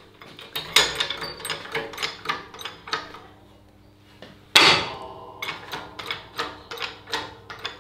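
Hand-pumped hydraulic pipe bender being worked to bend a steel bar. The pump lever gives a run of metallic clicks and knocks, then a pause, then one loud sharp metal clank with a short ring about four and a half seconds in, then more clicks.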